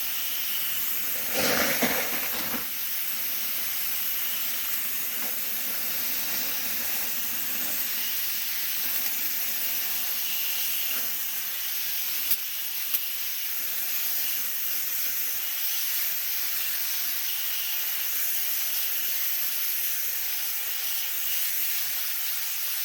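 Garden hose spraying water onto the hot coals of a grill, a steady hiss of water and steam as the fire is put out, with a louder rush about two seconds in.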